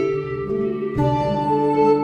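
Background music with plucked strings and sustained notes, a new note entering about a second in.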